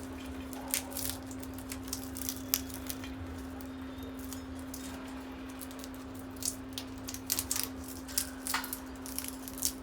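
Parrots cracking and nibbling peanut shells with their beaks: irregular sharp cracks and clicks, some in quick little clusters, over a steady low hum.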